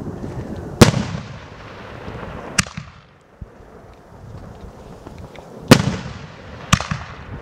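Multi-shot fireworks battery ("Korsary" cake) firing: four sharp bangs of bursting shells, the loudest about a second in and near six seconds, each followed by a fading echo.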